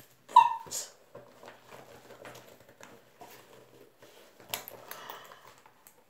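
A suede-look handbag with a metal chain strap being handled and opened: soft rustling and light clicks, with a sharper cluster of clicks about four and a half seconds in.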